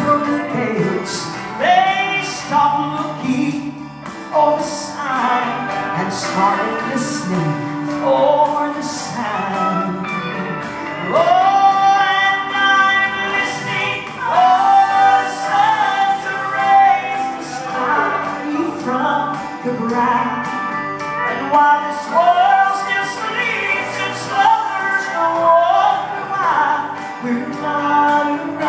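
Gospel song: singing over instrumental backing with a steady beat.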